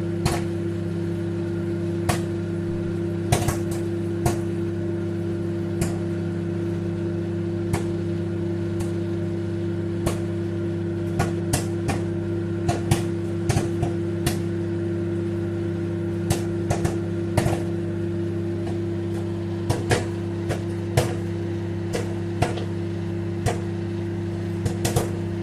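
Popcorn kernels popping in a running microwave oven: sharp, irregular pops over the oven's steady hum. The pops are sparse at first and come more often from about halfway through, as the popping gets going.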